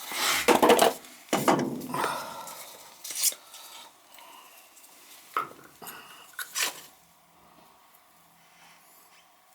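Metal parts clattering and clinking as they are handled: several loud knocks in the first three seconds, then a few lighter clicks, quieter after about seven seconds.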